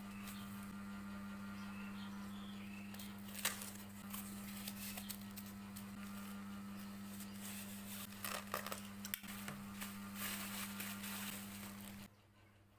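Small clicks, taps and rustles of hands handling a phone box, packaging and accessories, over a steady low hum; one sharper click about a third of the way in and a run of clicks near the end.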